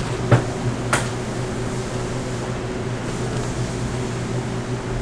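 Steady hum of kitchen ventilation with a low drone, and two sharp knocks early on, about half a second apart, as a rubber spatula strikes a stainless steel bowl while thick dough is mixed.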